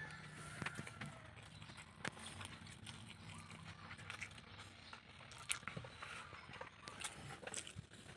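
Faint handling sounds of eating by hand: scattered clicks and rustles from a plastic food container and fingers in rice, over a low steady hum.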